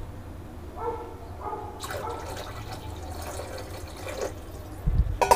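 Water poured in a thin stream into a pan of tomato rasam, splashing into the liquid for about three seconds starting about a second in. A couple of dull knocks follow near the end.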